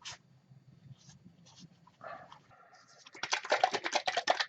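Scrubbing strokes on the rusty sheet-metal chassis of an old tube radio while cleaning oil off it: a few single wipes at first, then a quick, loud run of short back-and-forth strokes over the last second and a half.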